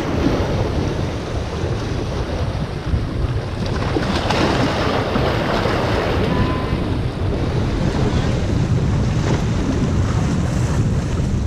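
Sea waves washing and splashing against the rocks of a breakwater, with strong wind buffeting the microphone as a heavy rumble.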